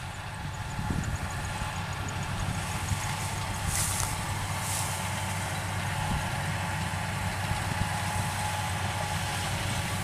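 Rice combine harvester's engine running steadily as it cuts the paddy: a low drone with a faint steady tone above it, growing a little louder over the first couple of seconds. Two brief hisses come about four and five seconds in.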